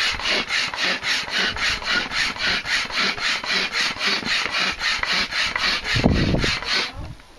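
A hand pump inflating a float tube bladder through a hose: quick, even strokes, each pushing out a rasping rush of air, about four to five a second. A low rumble comes in just before the strokes stop near the end.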